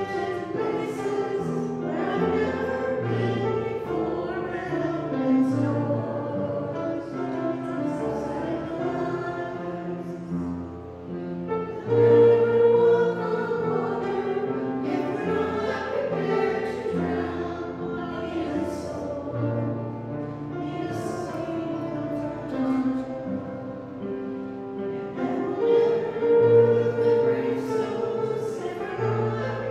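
A hymn sung by a group of voices over held low instrumental notes.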